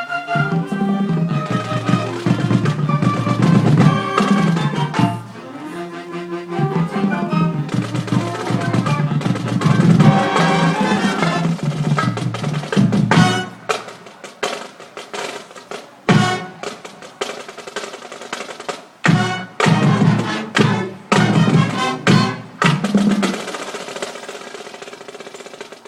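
Marching band playing: winds carry a melody over drums, then in the second half the music breaks into short accented chords and drum hits with gaps between them, dying down near the end.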